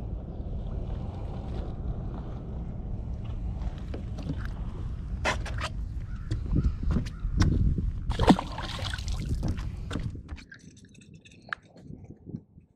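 Wind rumbling on the microphone, with knocks and clicks from handling and some water sloshing. About ten seconds in it drops to a much quieter background with a few faint clicks.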